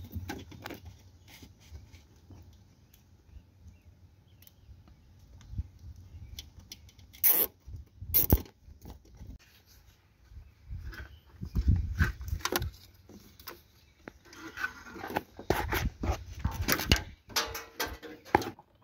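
Hands working a cable in black corrugated plastic conduit: irregular rustling, clicks and knocks, with a couple of sharp knocks about seven and eight seconds in and busier clusters of handling noise later on.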